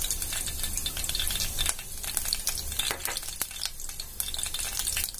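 Ghee heating in a stainless-steel bowl, sizzling with a steady run of small crackles and pops.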